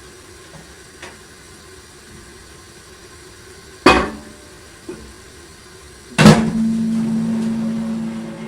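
Microwave oven door shut with a loud bang, a small click a second later, then a second bang about six seconds in, followed by the steady hum of the oven running.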